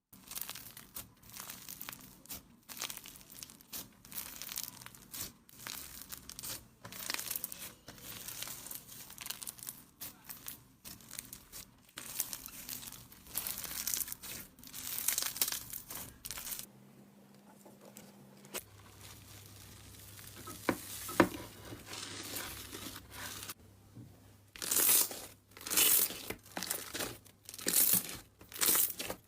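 Slime being squeezed, pressed and stretched by hand, making a run of short crinkling, crackling sounds. It goes softer for a few seconds midway, then louder crackles come near the end.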